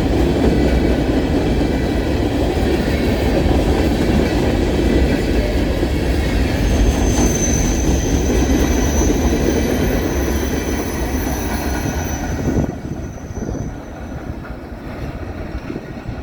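Empty freight cars of a CSX rock train rolling past, with steady wheel-on-rail rumble and clatter and a thin high wheel squeal starting about halfway through. The rumble drops off suddenly near the end as the last car goes by, leaving the squeal to fade soon after.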